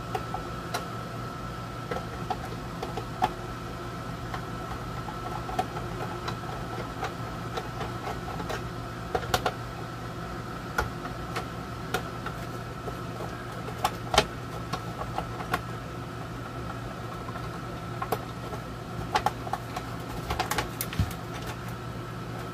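Scattered clicks and small knocks of a screwdriver backing screws out of a radio's plastic back panel, and of the plastic case being handled, over the steady hum of an air conditioner.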